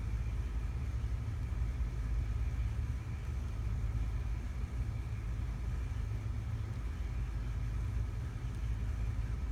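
Steady low background rumble with a faint hum higher up, unchanging throughout.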